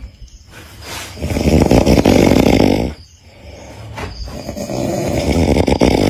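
A person snoring very loudly through an open mouth: two long snores, the first starting about a second in and the second about four seconds in, with quieter breathing between them.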